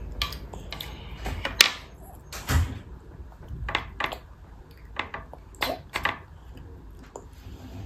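Light clicks and knocks of a toddler's plastic spoon and plastic meal tray on the table while she eats, about ten scattered taps, the sharpest about a second and a half in and a duller knock with a thump a second later.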